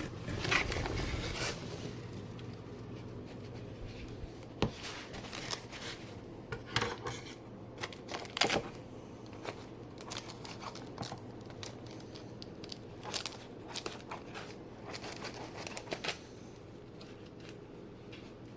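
Unwrapping a mailed plant from its packing: irregular snips, tearing and crinkling of tape and paper wrapping, busiest at first and thinning out near the end.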